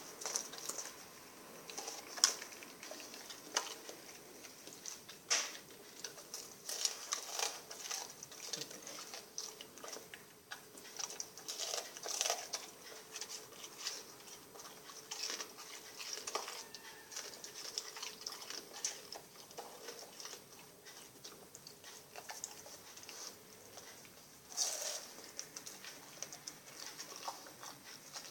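A Rottweiler chewing and crunching sardines: irregular wet smacks and clicks of its jaws, with louder bites about two seconds in and near the end.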